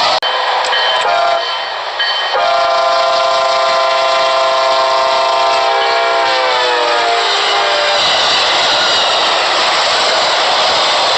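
A train's multi-chime air horn: a short blast about a second in, then a long blast of several notes sounding together that slides down in pitch as the train goes by and stops about 8 s in. The rushing noise of the passing train runs underneath throughout and carries on after the horn ends.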